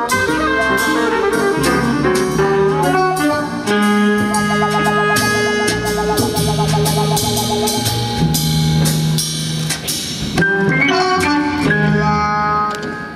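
Live small-band jazz played by piano, saxophone, clarinet, a brass horn, double bass and drum kit, with cymbal strokes throughout and a long wavering horn note in the middle. The band plays the final bars and stops near the end.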